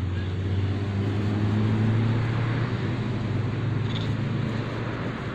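A motor vehicle engine running close by: a steady low hum that is loudest about two seconds in and eases off slightly after.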